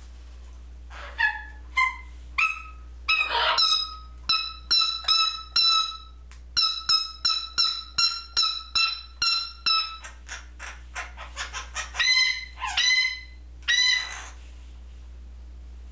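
African grey parrot calling: a long run of short, repeated whistled notes, about two a second, then a quick series of clicks and a few longer calls near the end.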